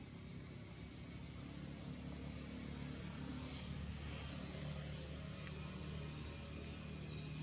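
Steady low drone of a distant engine, with a brief high falling chirp near the end.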